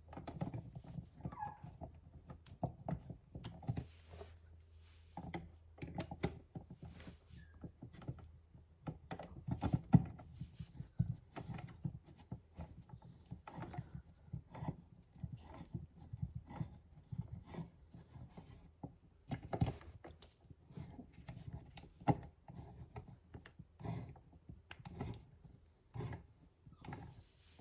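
Electrical outlet's receptacle mounting screws being tightened back into the box by hand: a long run of small irregular clicks and light knocks of the screwdriver and metal yoke.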